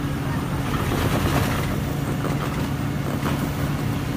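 Heavy diesel engine of the tree crew's equipment running steadily, a low, even drone.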